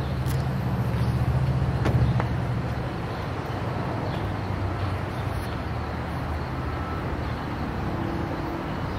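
Steady low engine rumble with outdoor background noise, strongest in the first two seconds and then easing to a steady hum, with two light clicks early on.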